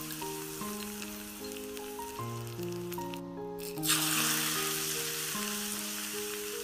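Hot Sichuan-peppercorn oil sizzling as it is poured over minced garlic, chili flakes and sesame seeds. The sizzle drops away briefly about three seconds in, then starts again louder with the second pour and slowly fades.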